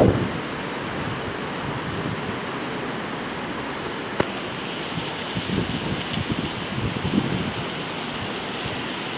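Heavy rain pouring down steadily, with wind gusting against the microphone. A single sharp click about four seconds in.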